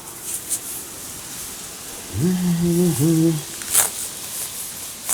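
A man's short wordless vocal sound, two held syllables like a hum, about two seconds in, followed by two sharp clicks, one shortly after and one at the very end.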